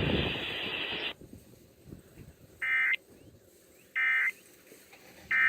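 Three short screechy bursts of Emergency Alert System SAME data tones: the End of Message code that closes the monthly test. Each burst lasts a fraction of a second, about a second and a half apart. A hiss cuts off about a second in, before the first burst.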